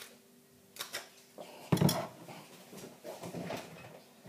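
Handling noises of a plastic milk bottle as its screw cap is twisted open: a few small clicks and rustles, with one sharper knock a little under two seconds in.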